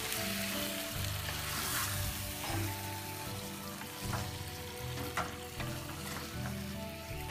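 Yogurt-marinated mutton pieces sizzling in a nonstick pot over very low heat while a wooden spatula stirs them. Scattered scrapes and knocks of the spatula against the pot come through a steady hiss.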